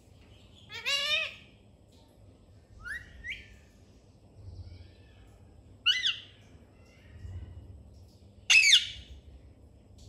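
Caged rose-ringed parakeet (Indian ringneck) giving four short calls a couple of seconds apart, each gliding in pitch; the last, near the end, is the loudest.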